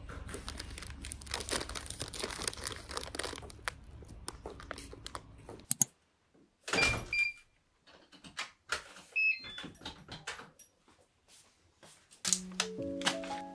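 A paper bag rustling with footsteps on pavement, then, after a short gap, a door lock's keypad beeping at several different pitches, with clicks and thunks of a door and keys. Soft background music comes in near the end.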